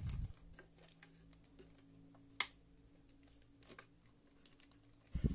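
Faint handling noise as a small plastic Wi-Fi access point is handled: a soft bump at the start, scattered small clicks with one sharp click about two and a half seconds in, and heavier handling near the end.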